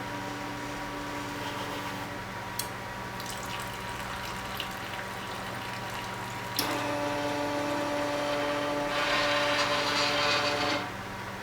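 Motors of a garden CNC machine running over a steady hum. A click about two-thirds of the way in starts a louder pitched motor whine, a hiss joins it, and both cut off sharply near the end.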